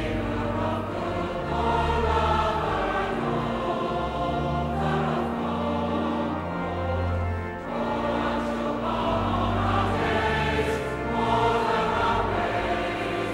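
Mixed choir of men's and women's voices singing a hymn in long, held notes.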